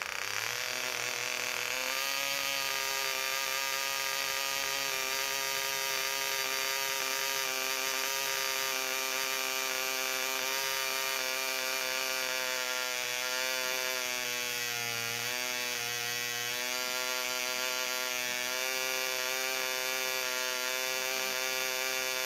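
VA Banks Mills 0.25 cc miniature model diesel engine running steadily at high speed while its compression screw is adjusted. Its note settles about two seconds in and wavers briefly near the middle.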